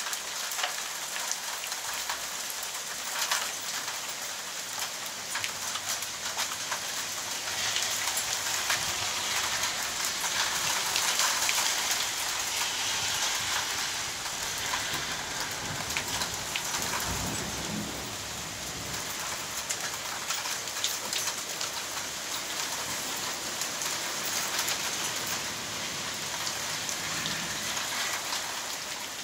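Heavy rain mixed with hail falling, a dense steady hiss peppered with many sharp ticks of hailstones striking. It grows heavier for several seconds about a third of the way in, then eases back.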